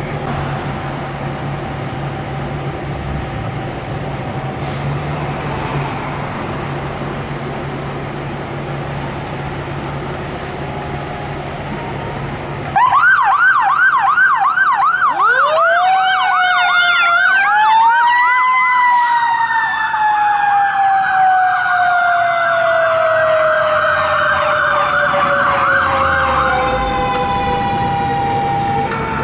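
A steady low engine rumble. About 13 seconds in, a Seagrave Marauder II fire engine's sirens start: an electronic siren in a fast yelp, joined by a mechanical siren that winds up, peaks and slowly winds down, while the electronic siren changes to a slower wail as the engine pulls out on a call.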